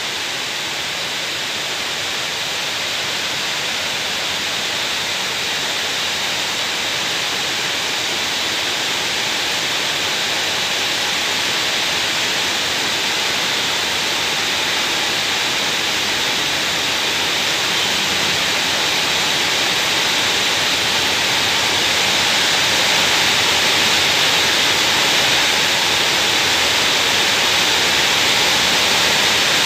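Steady, heavy rain making a constant loud hiss, growing gradually louder.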